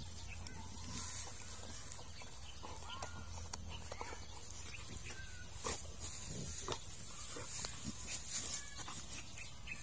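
Bully-type dog rolling on its back in grass, making short irregular vocal noises among the rustling of the grass under its body.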